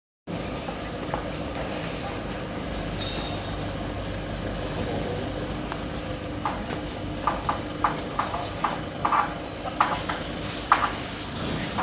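Steady drone of a large warehouse space with a faint constant hum. From about six seconds in, a run of short knocks comes through as a tempered glass panel is handled into its steel frame.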